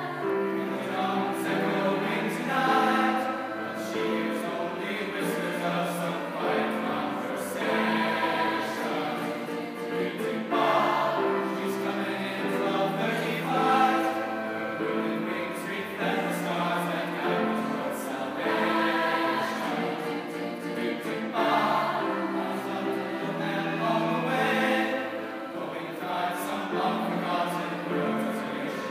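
A choir singing, many voices together holding and changing notes.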